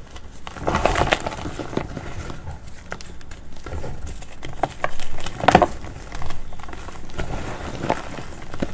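Reformed gym chalk (pressed magnesium carbonate) chunks crunching and crumbling as hands squeeze and break them over loose powder, a dense dry crackle with louder crunches about a second in and again around five seconds in.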